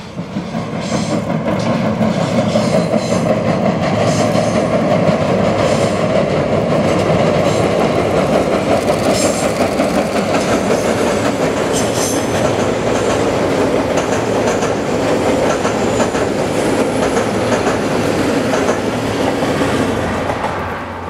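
A DE10 diesel locomotive hauling five 12-series passenger coaches crosses a steel truss railway bridge. Its engine runs while the wheels clatter over the rail joints and the steel bridge deck. The sound builds about a second in, holds steady while the coaches pass, and fades near the end.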